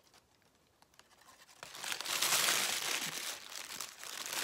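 Paper wrapper around a burrito crinkling and rustling as it is handled, starting about one and a half seconds in.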